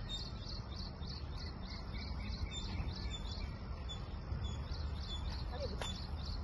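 A bird repeating a short, high chirp over and over, about two to three times a second, over a steady low outdoor rumble.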